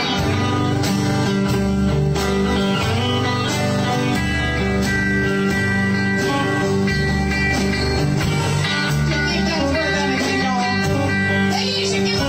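Country band playing an instrumental passage with no vocals: long sliding steel guitar notes over strummed acoustic guitar, bass and drums.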